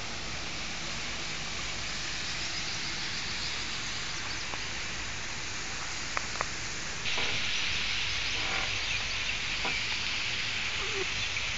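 Steady hiss of rushing water that gets louder and brighter about seven seconds in, with a couple of faint clicks just before.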